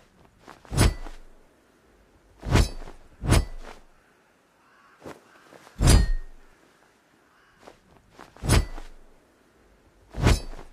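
Cutlass sword striking something about six times, irregularly a second or two apart, each hit a heavy knock with a brief metallic ring, with a few fainter taps in between.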